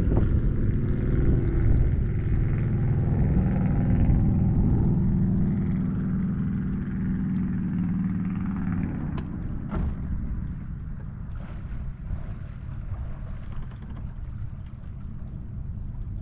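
Bass boat's outboard motor running at low speed, a steady low drone that drops off about nine seconds in, with two faint clicks around that point.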